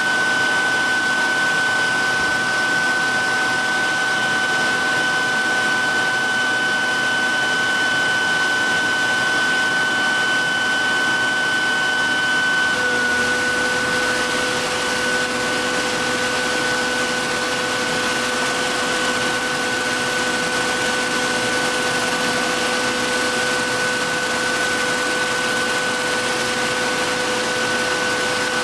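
Electric belt knife sharpener running steadily with a high-pitched whine; about halfway through its tone shifts, a lower hum joining in.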